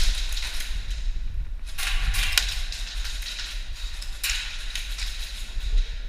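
Airsoft guns firing rapid full-auto bursts of BBs: three long bursts of fast clicks, each lasting one to two seconds.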